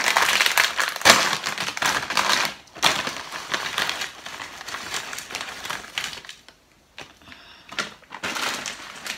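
A foil potato chip bag of Lay's White Cheddar crinkling loudly as it is handled, then potato chips tipped out of it and clattering onto a plastic plate in a run of crackles and small clicks.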